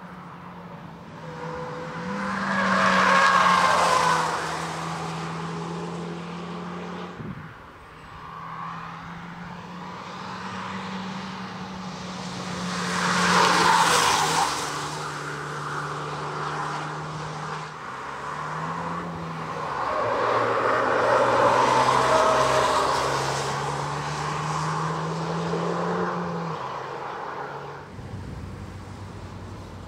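Hyundai i20 N prototype's turbocharged 1.6-litre four-cylinder driven hard on hot laps, passing close by three times. The engine note steps in pitch as it changes gear, with tyre and wind noise swelling at each pass.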